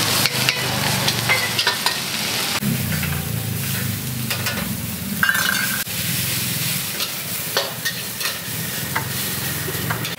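Seafood fried rice sizzling in a wok while a metal ladle and spatula scrape and clack against the pan as the rice is tossed and stirred.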